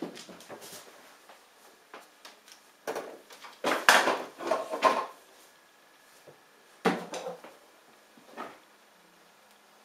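A Siamese kitten leaping about and landing among small objects on a cluttered desk: a run of knocks, clatters and thumps, loudest in the middle, followed by a few more thumps as it jumps back down.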